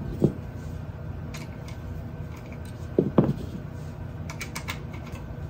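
Dull knocks and light clicks from hands handling the printer's bed parts and a metal hex key while fitting the belt-tensioner screw: one knock near the start, two close together about three seconds in, with faint clicks between.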